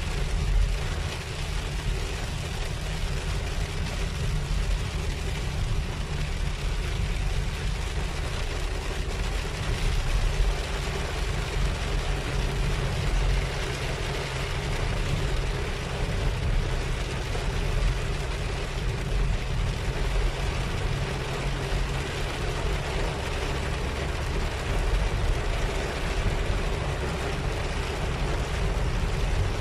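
Steady engine and road hum inside a car's cabin, with an even hiss of heavy rain on the car.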